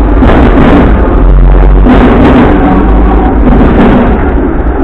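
Hong Kong double-decker tram running: a loud, steady low rumble of the wheels on the rails, broken several times by sharper rattling knocks from the car body.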